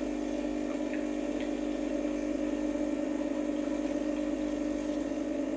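Rancilio Silvia V3 espresso machine's vibratory pump running with a steady hum, pushing hot water through the group head and empty portafilter into a glass: a blank shot that warms up the group head, portafilter and cup.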